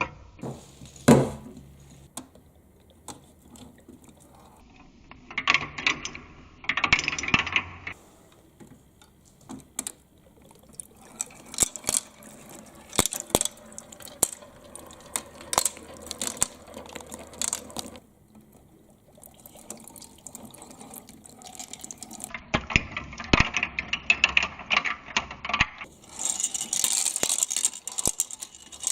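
Balls rolling, clicking and clattering down a twisting marble-run track with water running through it. The clicks come in irregular clusters, with a water splash and trickle underneath.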